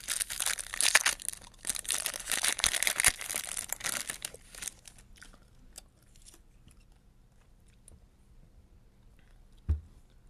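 Foil wrapper of a Topps Chrome baseball card pack being torn open and crinkled for the first four and a half seconds. After that, faint clicks of the cards being handled, and a short low thump near the end.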